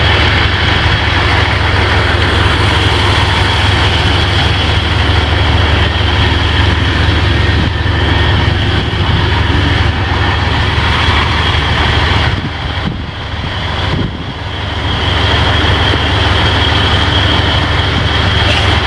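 Loud, steady machinery noise: a low rumble with a thin, steady high whine over it, dipping briefly about two-thirds of the way through.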